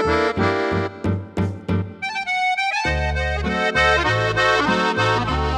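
Bugari EVO chromatic button accordion being played. It starts with short detached notes over bass notes, has a brief melody line without bass a little after two seconds in, then moves to sustained full chords with bass.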